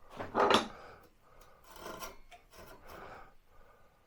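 Hand saw cutting wood: a loud rasping stroke near the start, then a couple of fainter strokes about a second apart.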